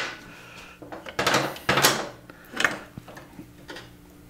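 About five short scraping and clattering sounds from hands working on a motorcycle's rear suspension, as the freshly torqued swingarm is worked by hand to check its pivot bearings for play.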